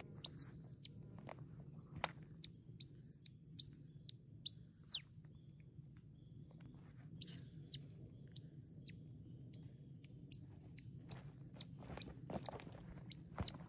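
A bird calling: about a dozen clear, high whistled notes, each rising and then falling. A run of five is followed by a pause of about two seconds and then a run of seven.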